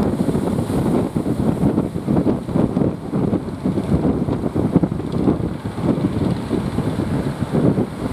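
Wind buffeting the microphone, an uneven gusting rumble.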